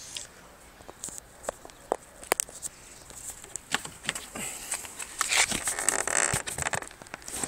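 Outer window belt moulding (glass weatherstrip) on a Ford Focus 3 door being pried up by hand: scattered light clicks and taps of plastic trim, then a longer rustling scrape of plastic and rubber starting about four seconds in.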